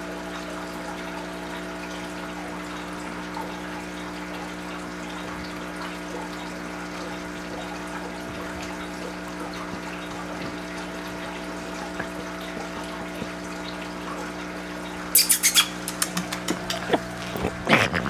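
Aquarium filter pump running, a steady hum with a constant trickle of water. About fifteen seconds in, a quick run of loud clicks and knocks starts.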